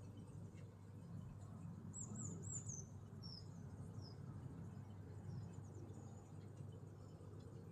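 Faint, high-pitched bird chirps: a quick run of four about two seconds in, then a few scattered single chirps, over a steady low hum.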